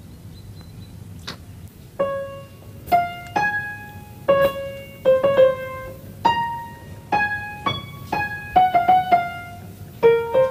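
A piano played note by note: a slow single-line melody begins about two seconds in and ends with a quick rising run of notes.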